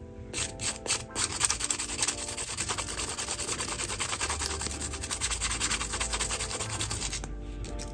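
Nail file (emery board) rubbed rapidly back and forth over a glittery pen barrel, scuffing the shiny surface so the adhesive will hold. Fast, steady strokes that start about half a second in and stop about a second before the end.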